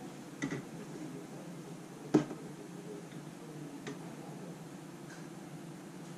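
A few sharp, scattered clicks from the computer keyboard under the hand at the desk, the loudest about two seconds in, over a faint steady background hum.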